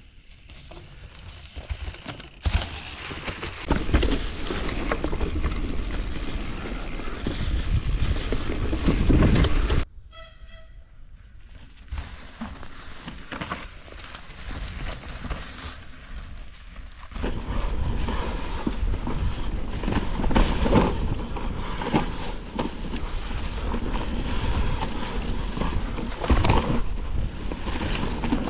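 A mountain bike descending a steep, rocky trail: tyres rumbling and knocking over stones and roots, frame and chain clattering, with rushing air on the action camera's microphone. About ten seconds in the noise drops to a quieter stretch, then the rattling comes back and runs on.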